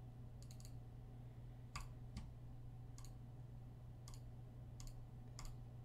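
A computer mouse clicking about seven times at irregular intervals, faint and sharp, as camera settings are adjusted. A steady low hum runs under the clicks.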